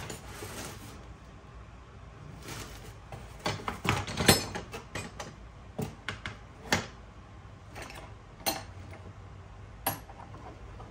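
Irregular metallic clinks and taps of hand tools and parts against an ATV engine under reassembly. They start about two seconds in, and the loudest comes a little over four seconds in.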